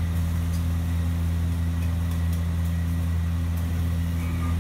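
Steady low mechanical drone, like a motor or engine running, with a few faint light ticks scattered through it.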